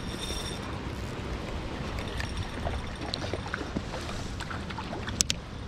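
Steady rush of flowing water, with scattered small clicks and one sharp click a little over five seconds in.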